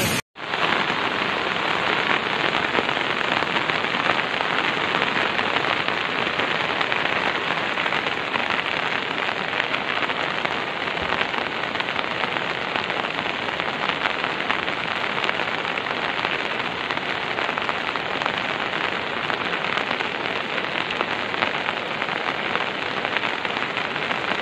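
Heavy rain falling steadily, an even unbroken hiss with no single drops or knocks standing out.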